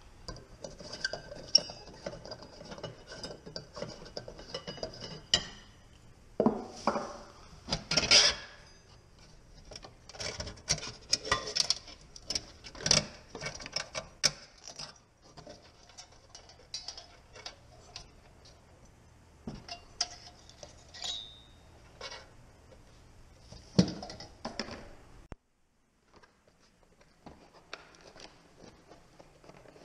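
Metal trim and spring clips of an old 1984 recessed can light being worked loose and pulled down from the ceiling: repeated clinks, clicks and metal scraping, with a few louder knocks. Near the end, after a short quiet gap, softer handling of a cardboard box.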